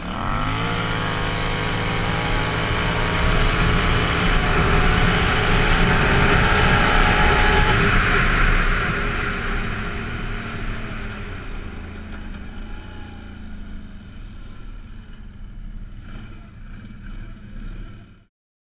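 ATV engine accelerating hard from a standstill, its pitch climbing steeply in the first second, with wind rushing louder as speed builds. About eight to nine seconds in the throttle comes off and the engine note fades away as the machine slows, before the sound cuts off abruptly near the end.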